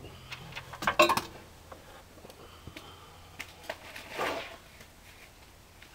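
Hand tools clinking against metal engine parts: a loud cluster of clinks about a second in, then scattered lighter clicks, and a short rustling hiss about four seconds in.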